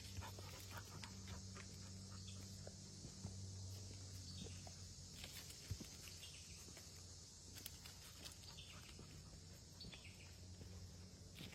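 Quiet woodland trail ambience: a faint steady high hiss, with scattered light crunches and clicks of footsteps on the trail. A low steady hum fades out about seven seconds in.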